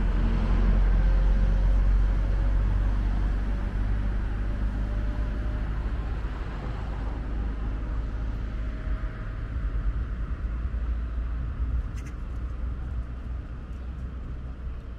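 Low, steady rumble of a road vehicle, loudest in the first couple of seconds and then easing off a little.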